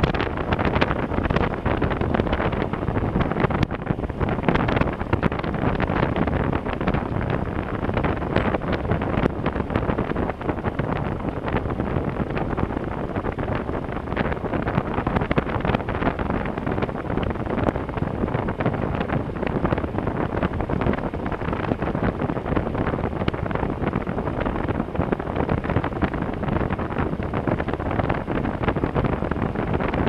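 Wind buffeting the camera microphone of a motorcycle riding along a gravel road, mixed with the bike's engine and the tyres on loose gravel, a steady rushing noise with constant fine crackle.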